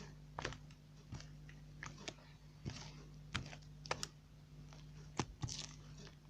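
Slime being kneaded and poked by hand, giving irregular sticky clicks and pops, about two a second, over a steady low hum.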